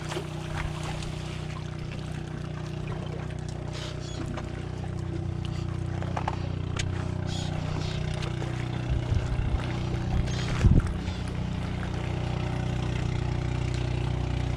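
Small boat's engine running steadily with a low, even drone, getting a little louder after a few seconds. A few clicks and knocks, the loudest about ten seconds in.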